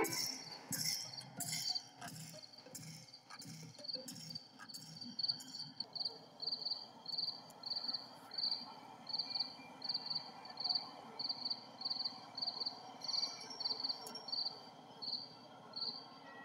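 Crickets chirping in a steady, regular rhythm, about two short high chirps a second, over a faint steady background hum. A few sharp clicks come in the first seconds.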